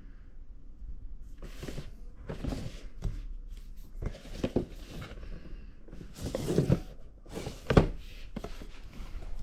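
Packaging being handled: several short bursts of rustling and scraping, with a sharp knock about eight seconds in.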